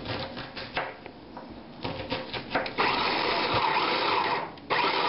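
A few knife strokes chopping onion on a plastic cutting board. About three seconds in, a small electric food processor starts up with a steady whir as it chops onion, stops briefly and starts again near the end: it is being pulsed.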